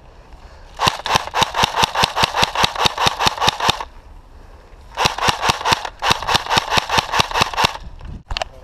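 Airsoft automatic electric gun firing full-auto in two bursts of about three seconds each, at roughly eight shots a second.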